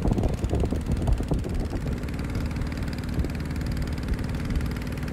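Boat engine running steadily under way, a low even hum, with uneven rushing noise in the first second and a half that then settles.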